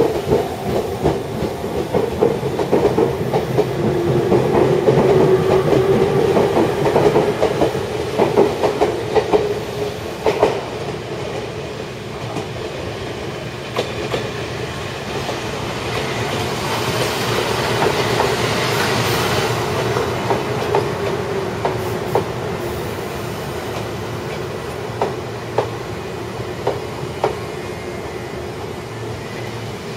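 Chichibu Railway 5000 series electric train pulling into a station. Its running tone drops in pitch as it slows, and the wheels click over rail joints in runs of sharp clacks. A hiss rises and fades about halfway through.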